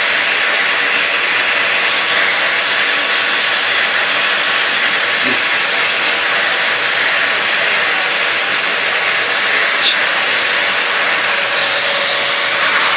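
Vacuum cleaner running steadily through its hose, the brush nozzle being drawn over a dog's short coat, with a faint high whine from the motor. One short click about ten seconds in.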